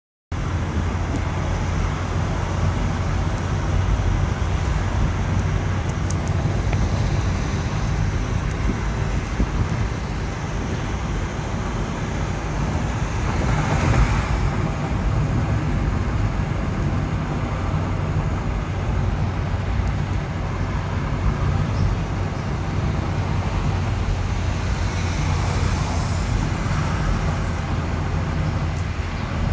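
Steady road and engine noise heard inside a moving taxi's cabin, a low hum under a rushing haze. A brief louder swell comes about halfway through.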